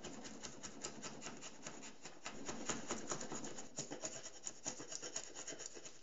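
A bench chisel prying and paring the face veneer off birch plywood, an irregular run of dry crackling and scraping as the veneer splits away in curls.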